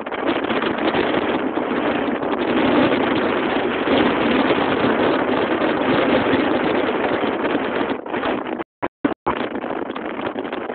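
Wind buffeting the camera microphone: a loud, steady rushing noise that cuts out briefly a few times near the end.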